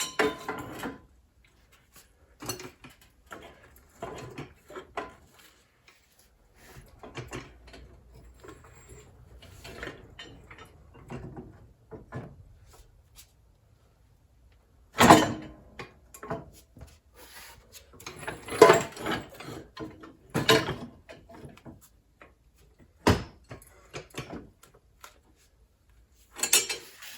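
Irregular clunks, clicks and scraping of metal parts as a replacement pivot axle and its bushings are pushed and forced against a riding mower's front frame, with several sharper knocks along the way. The axle assembly is too wide to slide into place.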